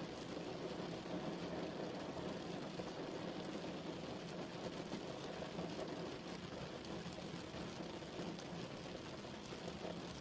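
Steady rain falling: an even, unbroken wash of sound weighted toward the low end, with faint scattered drop ticks.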